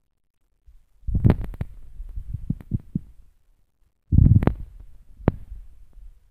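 Handling noise on a phone's microphone: low rubbing and thumping with sharp clicks, in two bursts, about a second in and again about four seconds in.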